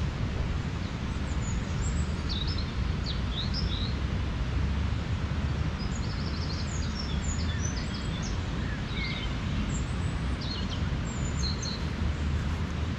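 Small songbirds chirping in short high phrases now and then, over a steady low rumble.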